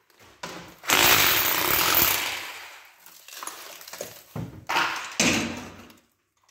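A hammering power tool chiselling old ceramic wall tiles off a kitchen backsplash, in bursts: a long one of about two seconds, then several shorter ones that stop about a second before the end.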